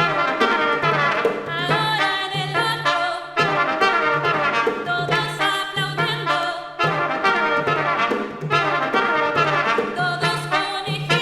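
A small brass band playing an upbeat instrumental passage without singing: trumpet and trombone lines over a low bass note that repeats in short, even pulses about twice a second.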